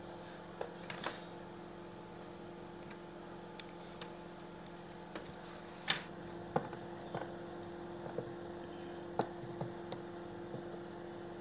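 Scattered light clicks and taps of small tools and parts being handled during a triac replacement on a washing-machine control board, over a steady low hum.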